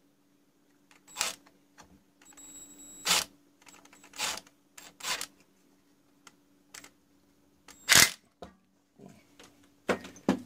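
Scattered clicks and knocks of the metal parts of an old Dressmaker sewing machine being handled and fitted back together, the loudest about eight seconds in, over a faint steady hum.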